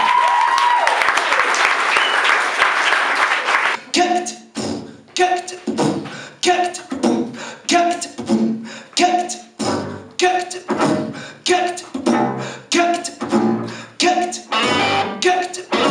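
Audience applause, then from about four seconds in a steady percussive rhythm of nearly two beats a second, each beat carrying the same short repeated note.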